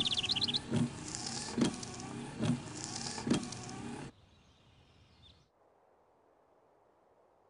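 Car windshield wipers sweeping back and forth over wet glass, with a knock at each turn about every 0.8 s, over a steady hiss; birds chirp at the start. The sound cuts off about four seconds in, leaving near silence.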